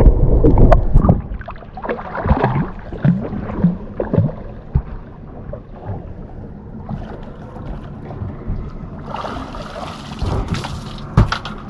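Wind buffeting the microphone and boat noise on a small fishing boat. It is loudest in the first second, then quieter with scattered knocks and a hiss near the end.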